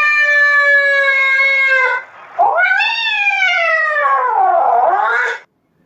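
Domestic cat meowing: a long drawn-out meow that ends about two seconds in, then a second long meow that rises and falls in pitch and stops shortly before the end.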